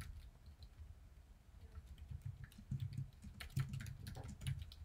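Computer keyboard typing: light, quick key clicks, sparse at first and coming in runs from about two seconds in.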